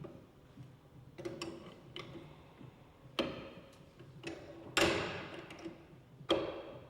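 Sharp metallic knocks and clanks, three strong ones with a brief ringing tail, the loudest about five seconds in, with fainter ticks between them, from HDPE pipes being clamped into the clamping devices of a plastic pipe butt fusion machine.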